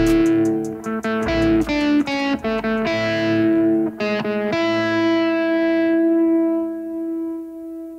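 Distorted electric guitar played live: quick picked notes for the first few seconds, then about halfway in a single chord is left ringing, fading slowly away.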